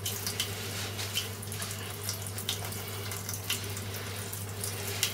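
Tap water running into a kitchen sink while a knife is rinsed under it, with irregular splashes.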